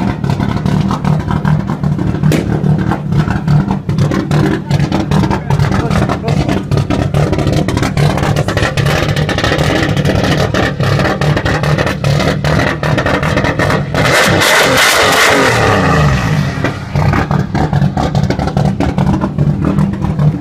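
Turbocharged BMW E36 325i's 2.5-litre straight-six running steadily at low revs, with many sharp clicks over it. About fourteen seconds in it revs hard in a loud burst for a couple of seconds, then its pitch falls back to idle.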